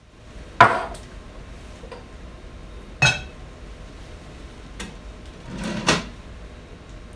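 Ashed crucibles handled with tongs between a glass desiccator and an analytical balance: a sharp clink about half a second in, another at about three seconds, and a double knock near six seconds, over a steady low hum.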